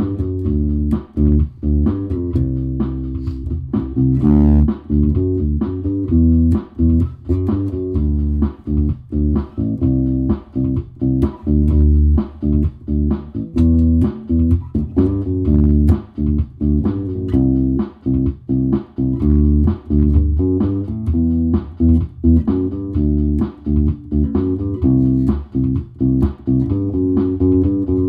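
Aria Pro II Thor Sound 32-inch-scale electric bass played in a riff of short, choppy notes with frequent brief gaps between them.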